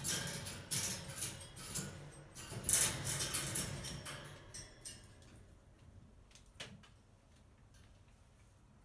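A crow flapping and shuffling on the wire top of a cage while it pecks at a piece of fried fish cake. Its feathers rustle and its feet and beak knock on the metal grid in a busy run of noise over the first four seconds or so, loudest near the middle of that run. After that only a few faint taps remain.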